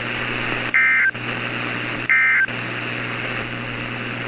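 Emergency Alert System end-of-message data bursts: two short, loud bursts of warbling two-tone digital data, about a second and a half apart, signalling the end of the alert. A steady radio hiss and low hum run underneath.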